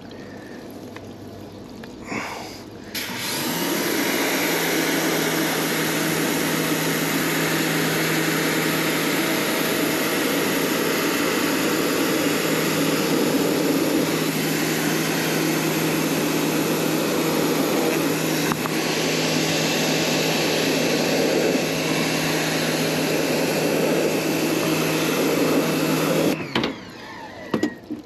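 Pressure washer running and spraying water onto an evaporator coil to rinse out foamed coil cleaner: a steady hiss of spray over a steady pump hum. It starts about three seconds in and cuts off suddenly near the end.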